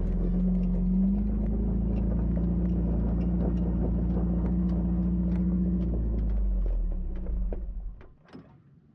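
Motor vehicle running on a dirt road, a steady low rumble that fades away about seven to eight seconds in.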